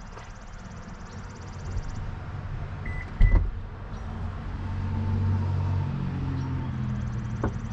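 Subaru Ascent power liftgate opening: two short warning beeps and a clunk as the latch releases, then the lift motor running with a steady low hum.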